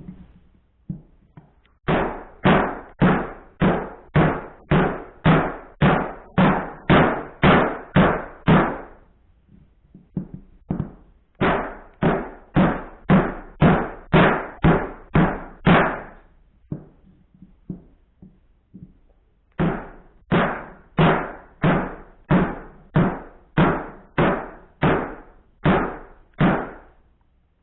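Small hatchet of an axe multitool chopping into wood: sharp knocks about two a second, in three runs of a dozen or so strokes with short pauses between.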